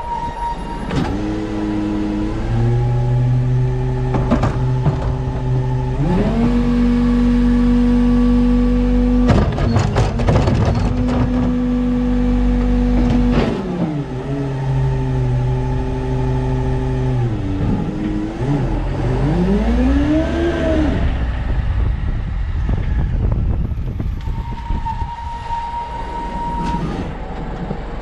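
Garbage truck engine stepping up in pitch to run the hydraulics, holding a high steady note, then dropping back down in two steps, with a burst of clanking near the middle. Near the end the pitch sweeps up and back down, and a steady high beeping tone is heard at the start and again late on.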